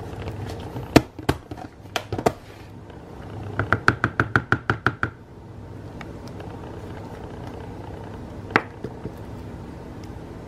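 Metal spoon knocking and scraping against a plastic container while peanut butter is stirred into oatmeal: a few scattered knocks, then a quick run of about a dozen even taps around four seconds in, and one more knock near the end, over a steady low hum.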